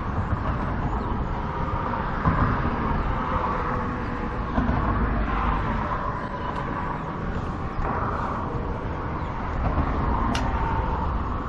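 Steady outdoor rumble and hiss like road traffic, with a faint steady hum, and a brief high squeak near the end.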